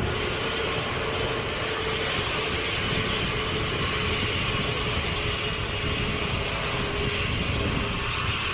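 Zipline trolley running along the steel cable: a steady rushing of wind with a faint whining tone from the pulleys, sagging slightly near the end.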